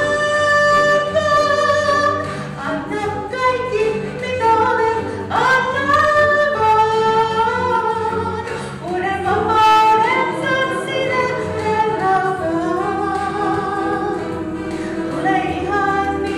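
A woman soloist singing a Christian song into a microphone, with long held notes over a steady instrumental accompaniment.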